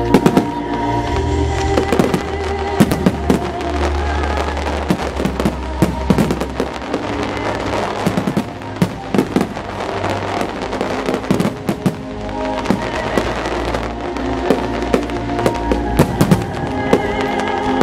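Fireworks display: many sharp bangs of aerial shells bursting at irregular intervals, with crackling, over music that plays throughout.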